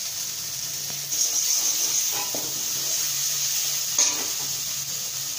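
Masala paste sizzling in hot oil in a metal pan as a spatula stirs it, the sizzle growing louder about a second in. A sharp knock of the spatula on the pan comes about four seconds in.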